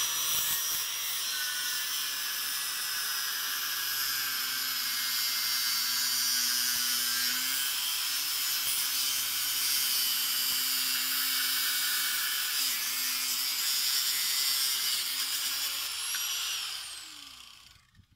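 Electric angle grinder with a cutting disc slicing a tab off a car seat's stock metal rail: the motor runs steadily under load with a loud, high cutting hiss. Near the end it is released and its pitch falls as it spins down.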